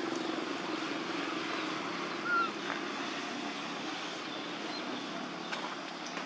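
Steady outdoor background noise with a faint low hum, and a single brief rising squeak about two seconds in.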